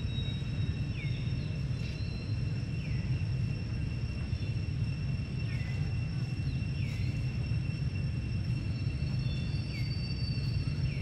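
Forest ambience: a steady high insect drone with short chirping calls every second or two, over a steady low rumble.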